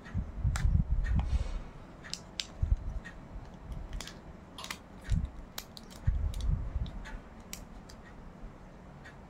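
A small clear plastic earplug case handled and opened by hand: a string of sharp plastic clicks and taps, with low bumps near the start and again about six seconds in.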